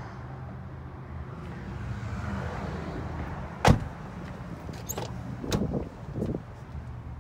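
A 2013 Nissan Murano's car door shutting with one sharp clunk about halfway through, followed by a few softer knocks and clicks as another door is opened, over a steady low hum.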